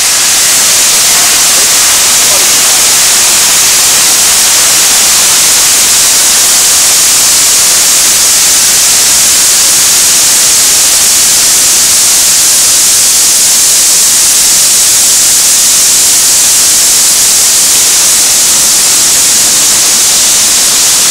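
Steady, loud hiss of water spraying in a truck-wash gantry.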